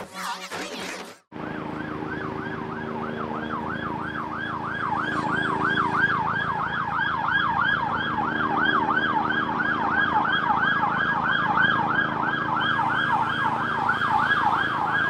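Emergency vehicle siren on a fast yelp, its pitch sweeping up and down about three times a second, over a steady low traffic hum. It starts about a second in, just after a short tail of music, and grows louder a few seconds later.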